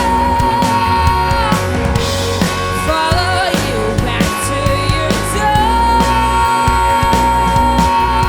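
Rock band playing: drums, bass and electric guitar, with long held high notes over a steady bass line.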